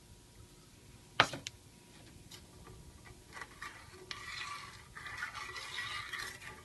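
A metal spoon stirring sugar into warm milk in a stainless steel saucepan: a sharp metal clink about a second in, a few light ticks, then a steady scraping and clinking of the spoon against the pan from about four seconds in.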